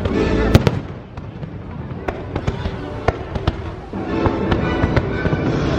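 A fireworks show: repeated bangs and crackles over a loud music soundtrack, with a heavy cluster of bursts about half a second in.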